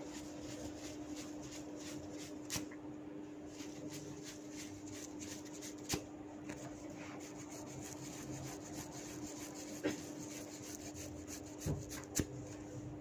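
Head massage with hair cracking: hands rubbing the scalp and tugging tufts of hair, giving five sharp cracks, two of them close together near the end. A steady low hum runs underneath.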